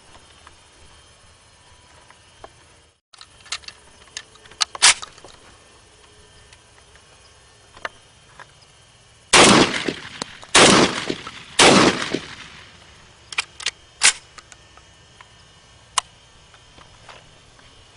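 Saiga 12 semi-automatic shotgun firing three shots about a second apart, test-firing after its gas plug was tightened another half turn. Lighter metallic clicks come a few seconds before and after the shots.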